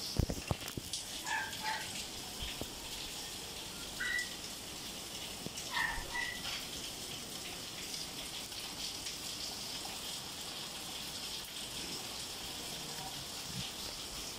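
Steady rain falling, an even hiss with no let-up. A few knocks in the first second, and a few short high-pitched sounds at about 1.5, 4 and 6 seconds in.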